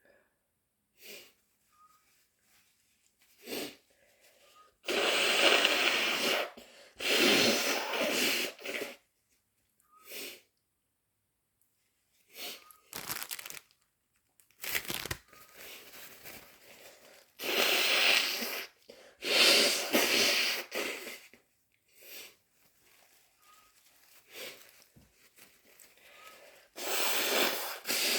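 A person sneezing wet sneezes again and again: about five loud sneezes, two close together, then two more, then one near the end. Short sniffs and breaths come between them.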